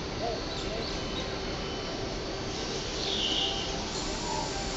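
Exhibition-hall background: a steady wash of noise with faint voices near the start, and a short high-pitched whine about three seconds in.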